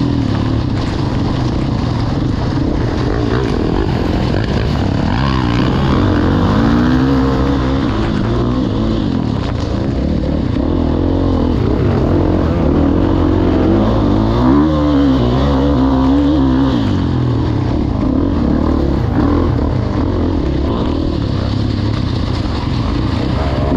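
Motocross bike engine running hard, its pitch rising and falling over and over with throttle and gear changes, over a steady rush of wind and track noise.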